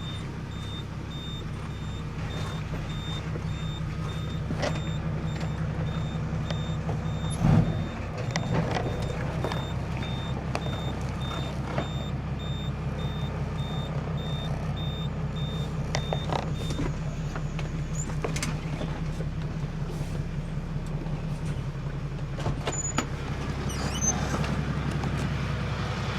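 Truck engine running while the truck reverses, its reversing alarm beeping in a steady repeating pattern that stops about two-thirds of the way through. A single loud knock sounds about seven seconds in.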